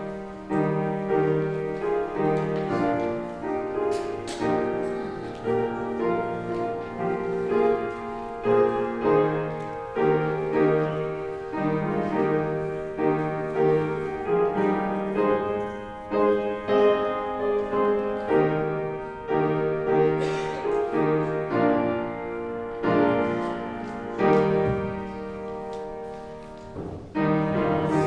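Piano playing a hymn tune in a steady rhythm, the music for the congregation's hymn before the singing begins; it pauses briefly near the end and then goes on.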